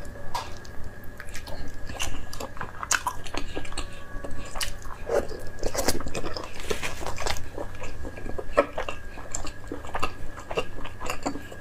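A person biting into and chewing a steamed dumpling in red chili sauce, with irregular wet smacking and clicking mouth sounds.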